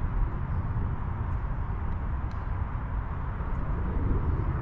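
Wind buffeting the microphone: a steady, fluttering low rumble with a fainter hiss above it, and a few faint high ticks.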